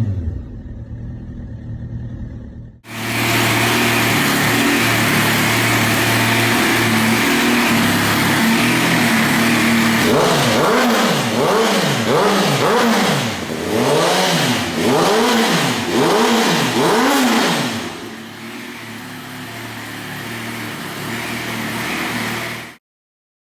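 Suzuki GSX-R1000 K7/K8 inline-four sportbike engine through an aftermarket exhaust, idling steadily. It is then blipped about eight times in quick succession, each rev rising and falling, and settles back to a quieter idle before cutting off abruptly.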